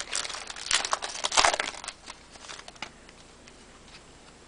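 Baseball card pack wrappers crinkling and tearing as packs are opened, in bursts over the first two seconds, then fading to a few faint ticks.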